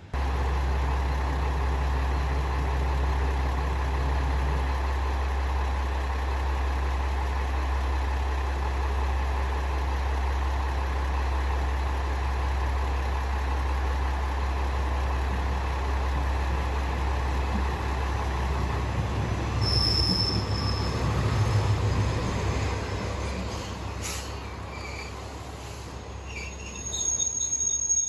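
Diesel railcars at a station platform: a steady low engine rumble, swelling as a second train pulls in, with a brief high brake squeal about twenty seconds in. Near the end a high steady electronic tone starts.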